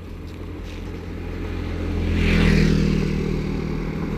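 A road vehicle's engine running with a steady low hum. It grows louder as the vehicle comes near, is loudest about two and a half seconds in, then eases slightly.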